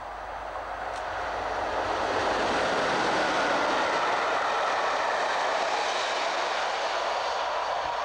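British Rail AC electric locomotive and its passenger coaches passing at speed: a continuous rushing roar of the train on the rails that swells over the first couple of seconds and then holds steady as the coaches go by.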